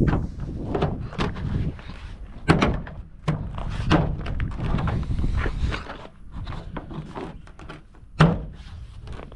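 Plastic tailgate rail trim cap being pushed and knocked down onto a pickup's metal tailgate: a series of irregular knocks and thunks, the sharpest about two and a half seconds in and near the end.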